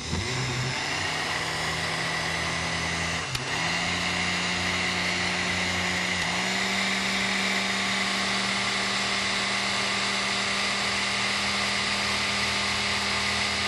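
Countertop blender running steadily on a thick green batter of soy milk, frozen spinach and flour. Its motor pitch steps up a little twice, about three and a half and six seconds in.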